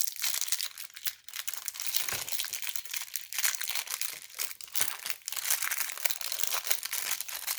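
Packaging crinkling and rustling as it is handled and unwrapped, with many small clicks and crackles throughout.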